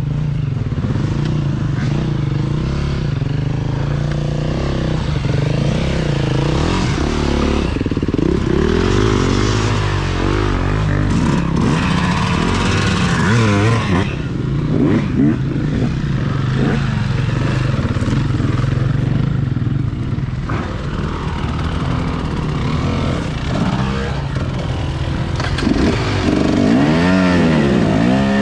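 KTM 300 two-stroke dirt bike engine running hard and revving up and down again and again as the bike is worked through slow, muddy singletrack. Another dirt bike runs close alongside near the end.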